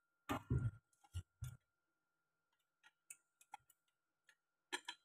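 Eating sounds: chopsticks clicking against a stainless steel pot, with a few louder knocks in the first second and a half, softer clicks after, and another knock near the end.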